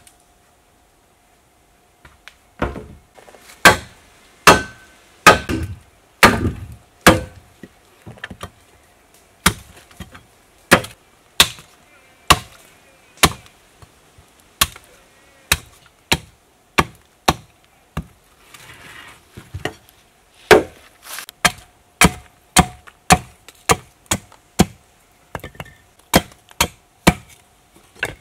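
Machete chopping into the end of a green wooden pole, shaping it into a pointed stake: sharp wooden chops that start about two seconds in, uneven at first, then settling into a steady rhythm of a bit over one chop a second.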